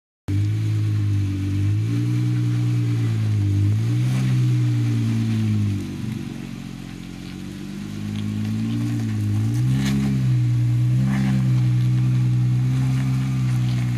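Jeep engine running at low speed while rock crawling, its pitch rising and falling as the throttle is worked. About six seconds in it drops lower and quieter, then picks back up.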